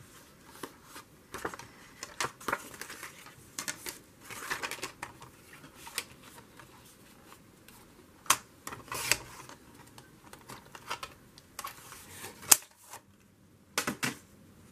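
Scissors snipping paper, with irregular sharp clicks of the blades and the rustle of paper being handled and trimmed smaller. The loudest snaps fall around the middle and near the end.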